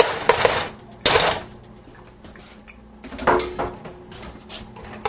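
Kitchen utensils scraping and knocking against a pot as mashed potatoes are stirred and scooped: a few short scrapes and clatters, the loudest about a second in.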